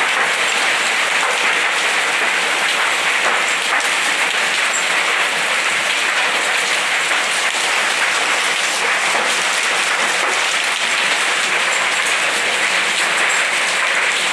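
Heavy hailstorm: hailstones and rain pelting down in a dense, steady clatter of countless small impacts.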